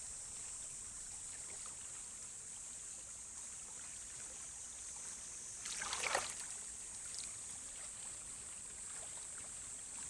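Faint paddy-water ambience: a steady high-pitched hiss with one brief, soft water sound about six seconds in.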